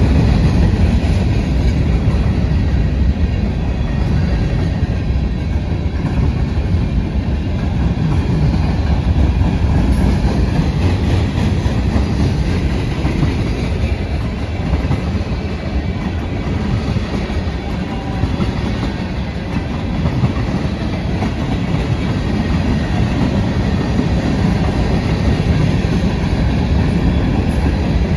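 Train rolling past close by: a steady rumble of steel wheels on rail with a clickety-clack of cars over the track.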